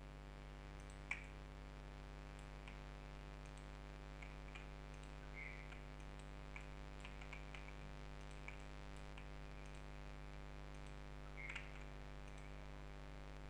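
Sparse clicks of a computer mouse and keyboard, the sharpest about a second in and a short cluster near the end, over a steady low electrical hum.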